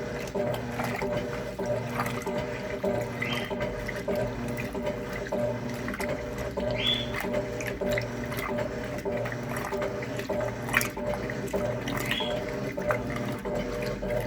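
Electrolux LTC10 top-loading washing machine running full of water: moving water over a steady motor hum, with a short rising squeak about every three to four seconds.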